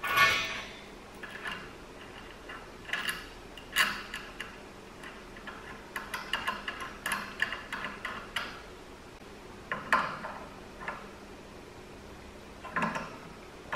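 Light metal handling clatter: a gas hose and the cylinder's retaining chain knock against the gas cylinder and cart while the hose's brass fitting is worked onto the regulator. It comes as scattered clinks and knocks, with a quick run of small ticks in the middle.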